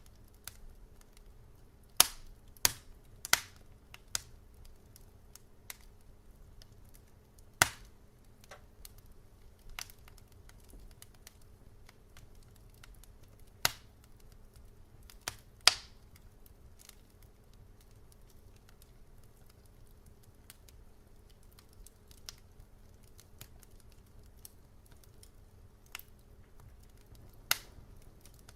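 Wood fire crackling: irregular sharp pops and snaps, a few much louder than the rest, over a faint low hum.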